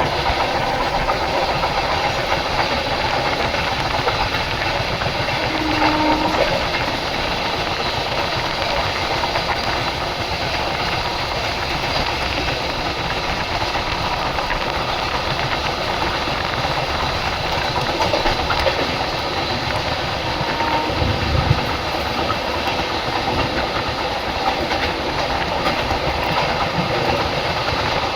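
Dakshin Express passenger train running on the rails: a steady rumble and rattle of the coaches in motion.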